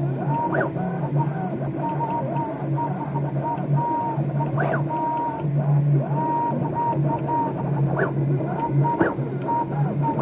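Stepper motors of a DIY CNC laser gantry whining as the axes move, the pitch gliding up and down as each move speeds up and slows down, over a steady low hum.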